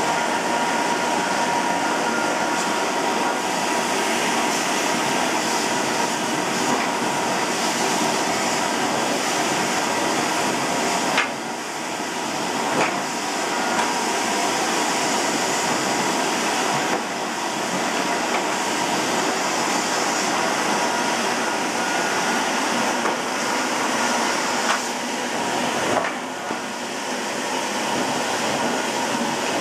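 Hoover Sensotronic System 2 (S3128) vacuum cleaner running steadily with a steady whine, with a few knocks and brief drops in level about a third of the way in and again near the end.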